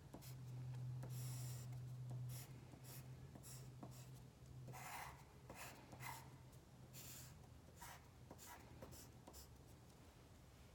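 A pen drawing on paper: short, irregular scratchy strokes as curved lines are drawn. A faint low hum sits underneath for the first couple of seconds.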